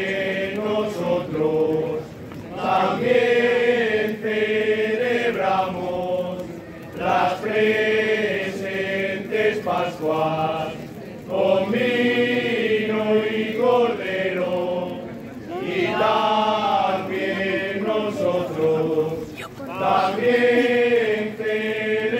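A group of voices singing a slow, chant-like song in unison. The melody comes in repeated phrases of a few seconds each, with a short break for breath between them.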